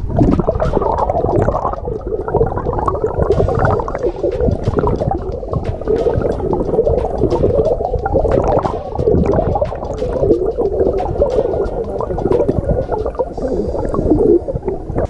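Shallow stream water rushing and gurgling as heard by a camera held underwater, a steady churning with many small scattered clicks.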